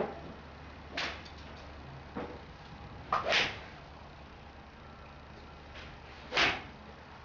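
Golf club swishing through the air in a full swing, loudest about six seconds in. A sharp click comes about a second in, and a shorter swish just after three seconds.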